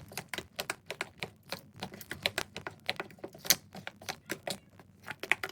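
A spoon clicking and tapping against a container, many quick irregular clicks, as pancake batter is stirred.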